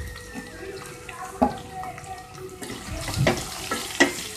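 Chopped onions going into hot oil in a steel pot, sizzling steadily, with a few sharp knocks of the plate and spoon against the pot as they are tipped in and stirred.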